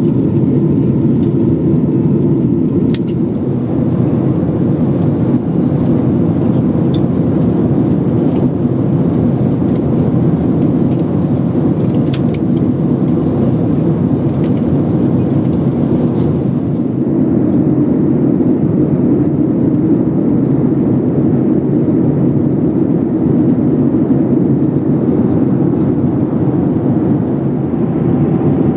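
Steady low rumble of engine and air noise heard inside a Boeing 737 airliner's cabin, with a few light clicks and rattles in the first half.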